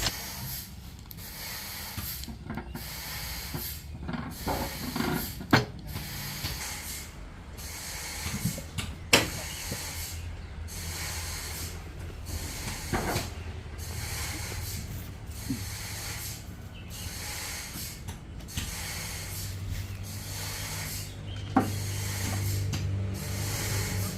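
Sawmill machinery running with a steady low hum that grows louder near the end, broken by a few sharp knocks.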